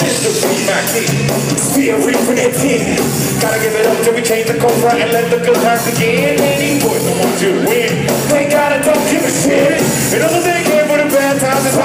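Live band music at a concert, loud throughout, with a melodic line carried over a steady low end.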